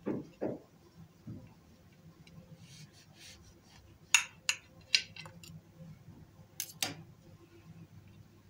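Knife cutting slices of a soft cake on a plate: faint sawing through the cake, then five sharp clicks of the blade against the plate in the second half.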